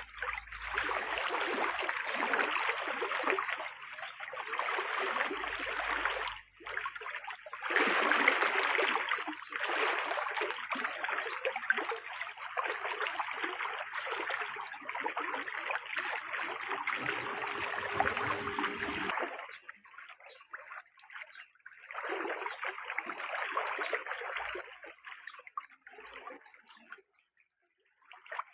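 Running water, pouring and splashing, starting and stopping in spells with short breaks.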